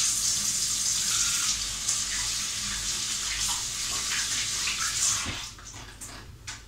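Kitchen tap running as hands are washed under the stream, a steady hiss of water that stops about five seconds in, followed by a few small knocks.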